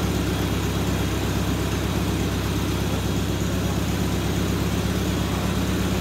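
Farmall C tractor's four-cylinder engine idling steadily with an even, unchanging beat.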